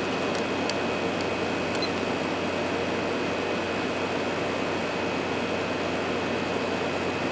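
Hotpoint 8400 BTU window air conditioner running with its compressor on, putting out ice cold air: a steady rush of the fan with a faint steady whine and low hum. A few faint ticks come in the first second or so.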